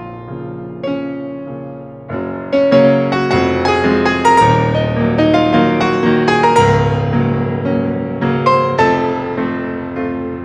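Synthesizer playing a melody over chords in a piano-like voice, each note struck and then fading; it starts quietly and swells into fuller chords about two and a half seconds in.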